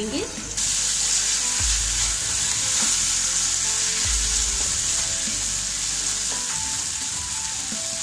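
Chopped capsicum, green garlic and peas hitting hot oil in a non-stick kadhai with frying onions, sizzling loudly from about half a second in while a spatula stirs them.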